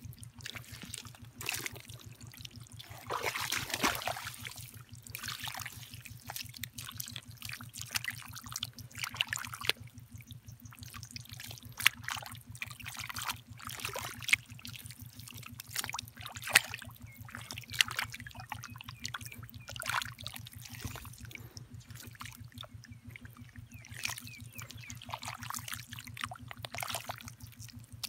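Wet mud squelching and shallow water splashing and trickling as hands dig through muddy ground, in many short irregular strokes, with a louder run of splashing about three seconds in. A steady low hum runs underneath.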